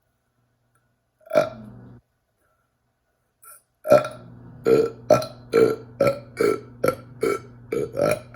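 A person burping: one loud burp a little over a second in, then, about four seconds in, a rapid string of about ten short burps, roughly two a second.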